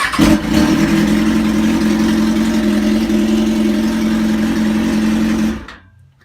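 A 2003 Kawasaki ZX-6R's replacement starter motor spins the 636 cc inline-four over steadily for about five and a half seconds, then stops. The engine turns freely but is not meant to run, as the fuel tank is off; the cranking shows the old seized starter was the fault.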